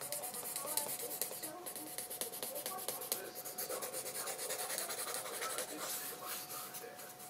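A wooden-handled pen scratching across sketchbook paper in many quick, short strokes.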